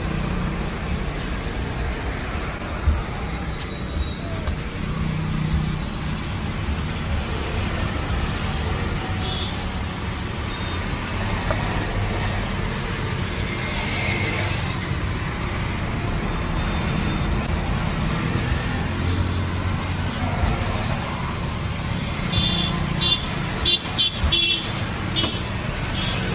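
Steady roadside traffic noise, a low rumble of passing vehicles, with a few quick horn toots near the end.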